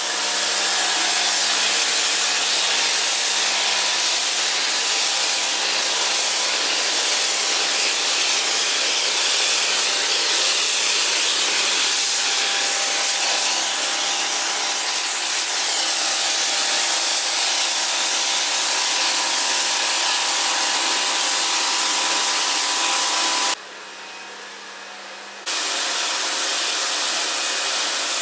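Kärcher electric pressure washer running and spraying, a loud steady hiss of the water jet over the motor's hum. About three-quarters of the way through, spray and motor stop for about two seconds, then start again.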